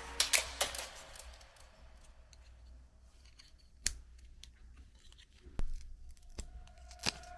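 Scissors snipping several times in quick succession in the first second, then a few separate sharp clicks spread over the following seconds.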